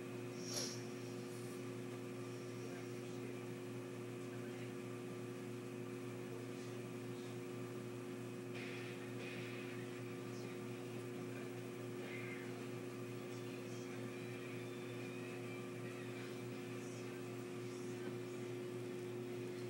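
A steady low hum made of several fixed tones, with one short click about half a second in.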